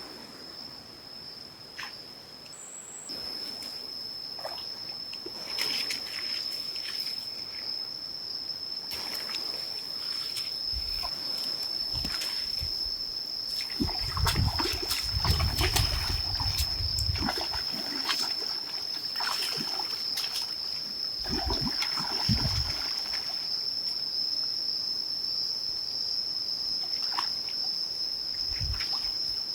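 Water splashing, sloshing and trickling in irregular bouts, over a steady high-pitched insect hum.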